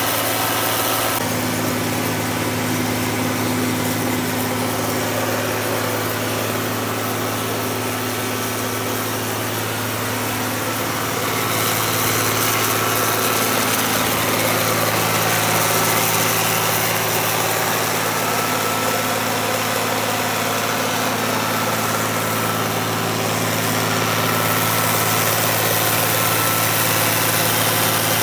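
John Deere 4230's turbocharged 404 cubic-inch six-cylinder diesel running at a steady speed while it drives a PTO dynamometer on its dyno run. It gets slightly louder about a third of the way through.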